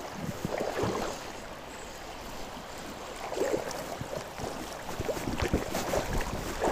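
Shallow river water splashing and sloshing in irregular bursts while a hooked trout is played on a spinning line.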